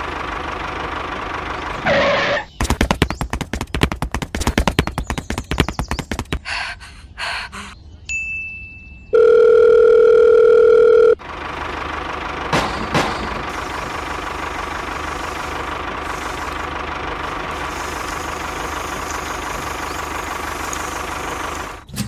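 Tractor engine sound running steadily, broken up by a few seconds of rapid knocking clatter and then a loud horn-like tone held for about two seconds, after which the engine drone runs on.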